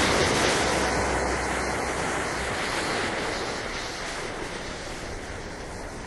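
Ocean surf, a steady rushing wash of waves that fades gradually.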